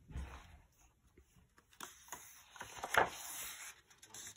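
A page of a hardcover picture book being turned: soft paper rustling and sliding, loudest about three seconds in.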